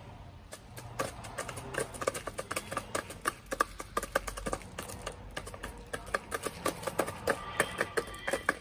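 Chickens pecking at feed around a plastic feeder: rapid, irregular sharp taps of beaks, several a second, with some clucking near the end.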